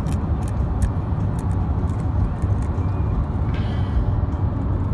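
Road noise inside a moving car's cabin: a steady low rumble, with scattered short clicks over it.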